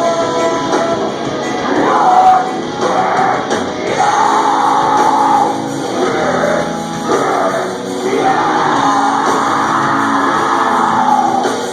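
A metalcore band playing live, with distorted guitars, drums and loud vocals. Twice the vocals hold long lines over the band, in the middle and again near the end.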